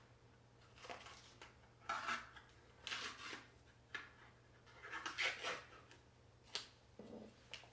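Faint, scattered clinks and scrapes of a metal spoon against a plastic gelato jar as it is opened and scooped, a few separate knocks spaced about a second apart.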